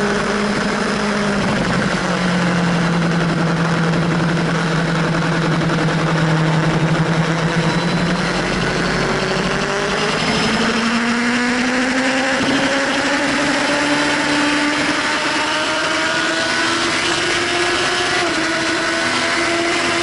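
Sport motorcycle engine at track speed, heard onboard over heavy wind rush: the engine note sags slightly through a corner, then climbs steadily from about halfway as the bike accelerates onto a straight.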